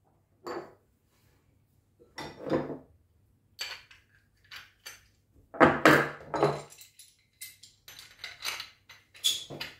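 Steel spanners, a pipe wrench and stainless steel pipe fittings being handled and set down on a wooden workbench: a scattered series of separate metal clinks and knocks, loudest about six seconds in.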